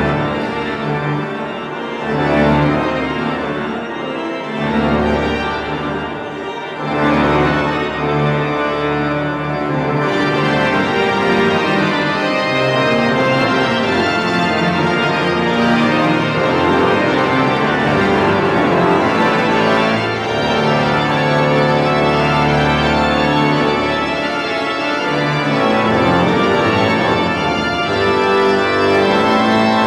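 Church pipe organ playing slow, sustained chords over held bass notes.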